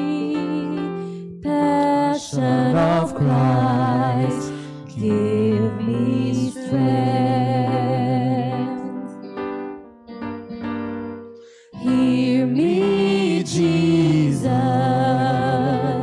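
Slow communion hymn played on an electronic keyboard with a voice singing along in held notes, dropping to a short lull about ten seconds in before picking up again.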